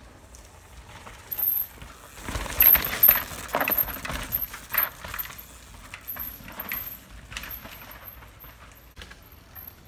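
Downhill mountain bike passing close on a rooty dirt trail: tyres hitting and skidding over roots with the chain and frame rattling, loudest about two to five seconds in, then fading into smaller clatters as it moves away.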